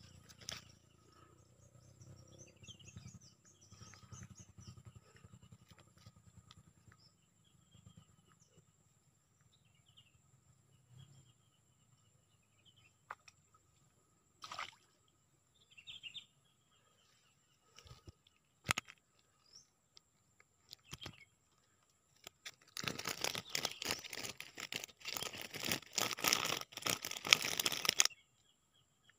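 Faint birds chirping in the first half, with a few scattered clicks. Near the end comes about five seconds of loud crackling rustle.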